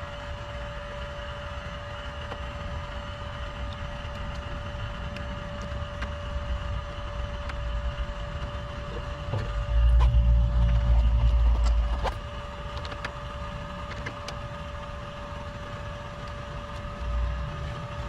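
Steady hum of running air-conditioning equipment, with a constant mid-pitched tone, and faint clicks from handling wiring at the condenser's contactor. About ten seconds in, a louder low rumble rises for about two seconds.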